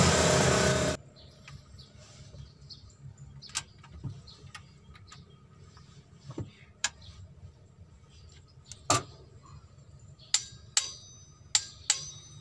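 Torque wrench and socket on the cylinder head bolts of a Mitsubishi L300 diesel engine: scattered sharp metallic clicks and clinks, a few with a short metallic ring, coming closer together in the last few seconds, on the final torque pass to full spec. A loud noise fills the first second and cuts off abruptly.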